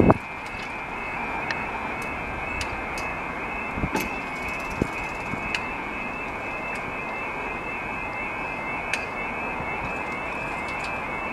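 Level crossing's electronic alarm warbling steadily between two high pitches while the barriers come down, with a few short knocks, the loudest right at the start and about four seconds in.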